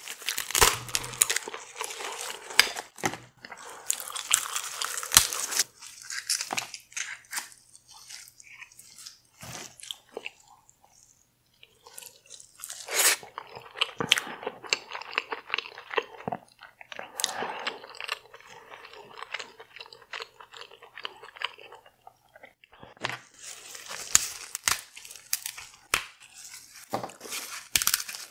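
Close-miked chewing and crunching of deep-fried, Doritos-crusted seafood, bites coming in clusters with a couple of short lulls.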